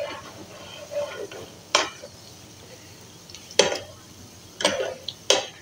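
A metal slotted spoon stirring gulab jamun in hot ghee, knocking sharply against the frying pan four times at uneven intervals. A soft sizzle of frying runs underneath.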